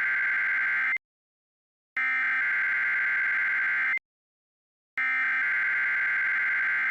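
EAS/SAME header data bursts: a harsh, buzzy two-tone data screech. The end of one burst runs to about a second in, then two more follow, each about two seconds long with a second of silence between them. This is the digital header that opens a NOAA Weather Radio Required Weekly Test.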